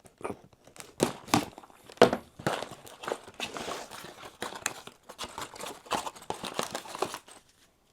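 Plastic packaging crinkling and rustling as a LEGO set is unpacked, its bags of bricks and instruction booklets handled, with irregular clicks and taps.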